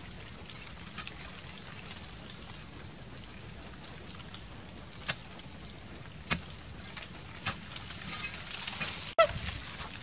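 A hoe chopping into earth and tree roots while digging, over a light crackle of falling soil. Three sharp blows land a little over a second apart in the second half, followed by a patch of scraping.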